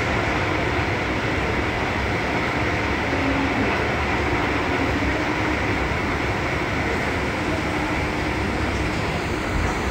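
Subway station escalator running: a steady mechanical rumble with a faint hum.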